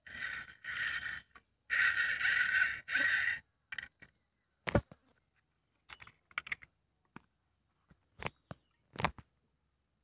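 A crow cawing four times in quick succession during the first three and a half seconds, followed by scattered light clicks and a few sharp knocks.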